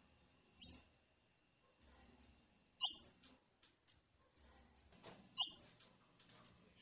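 Female blue-black grassquit (tiziu) giving short, high-pitched call notes, three times at intervals of about two and a half seconds, the second and third louder than the first.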